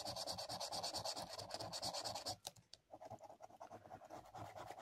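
Scratch-off coating of a paper lottery scratchcard being rubbed away in quick, rapid back-and-forth strokes. The scratching pauses briefly a little over two seconds in, then carries on more lightly.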